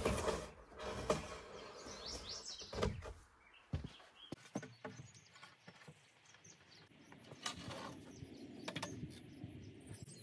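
Birds chirping, with scattered knocks and clatter of boards being handled, busiest in the first few seconds and sparse after.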